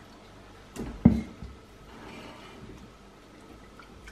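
A whisk stirring a thick béchamel sauce in a small stainless steel saucepan, soft stirring sounds with one sharp knock about a second in.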